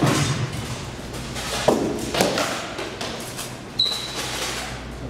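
Rattan swords striking shields and armour in SCA heavy-weapons sparring: several sharp blows with an echo, and a brief ringing note on one blow about four seconds in.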